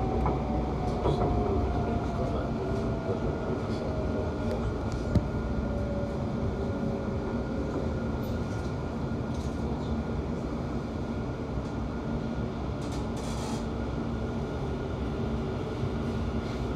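Class 710 electric train heard from inside the carriage, slowing into a station. The traction motors give a whine that falls slowly in pitch and fades out about eight seconds in, over a steady low rumble and hum from the train.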